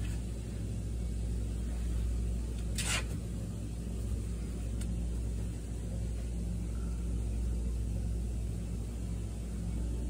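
Steady low rumble with a brief hiss about three seconds in.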